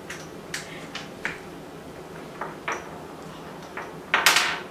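Wooden Cuisenaire rods clicking as they are set down on a tabletop one at a time: about six light, sharp clicks spaced irregularly, then a brief, louder rustle of noise near the end.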